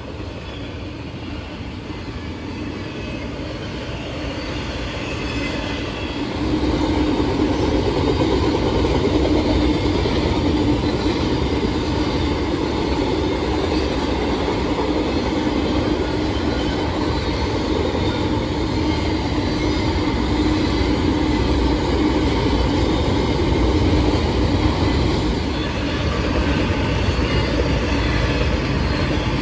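Freight train rolling past: a steady rumble of wheels and railcars on the track, growing louder about six seconds in as it comes close and then holding level.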